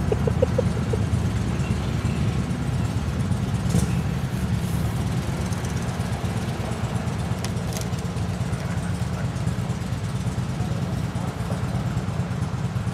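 Motorcycle engines idling and running nearby, a steady low rumble with no break.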